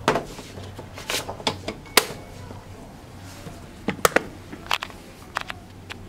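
A dozen or so sharp clicks and taps at irregular intervals, some in quick pairs, over a low steady hum.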